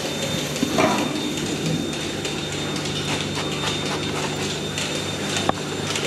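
Milking parlour machinery running: the steady hum of the milking machine's vacuum pump, with a single sharp click near the end.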